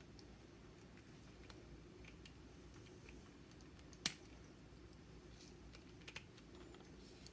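Near silence with a few faint small clicks and one sharper click about four seconds in: a tool prying and picking at the precision screwdriver's stuck end cap.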